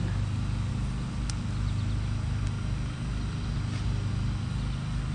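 Steady low machine hum with a single sharp click about a second in.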